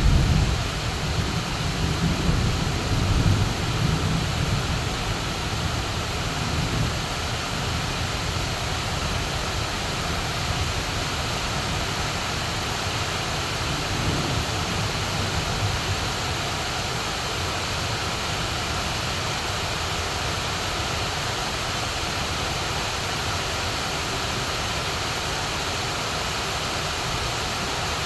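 Heavy rain pouring steadily in a thunderstorm, with a low rumble of thunder that fades over the first few seconds.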